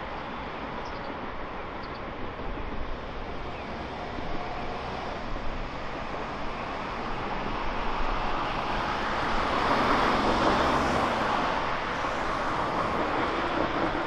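Road traffic: cars and a small truck driving through an intersection. The steady tyre and engine noise swells as a vehicle passes close, about ten seconds in, then eases off.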